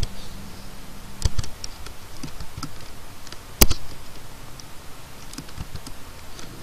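Computer keyboard typing: irregular keystrokes, with one much louder key strike about halfway through.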